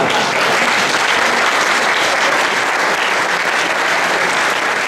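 A large audience clapping, loud and steady.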